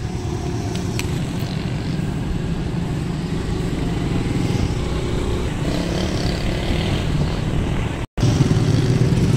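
Steady low rumble of a motorbike ride along a town road: engine running with wind noise on the microphone. The sound cuts out for a moment near the end.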